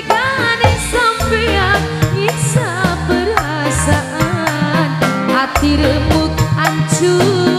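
Live tarling-dangdut band music played loud through a PA, with a woman singing an ornamented melody over bass, electric guitar and steady hand-drum percussion.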